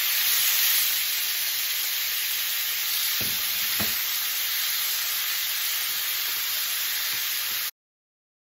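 Onion, green pepper and freshly added tomatoes sizzling in oil in a stainless steel pan while a wooden spoon stirs them. The sizzle is steady, with two light knocks about three seconds in, and it cuts off suddenly near the end.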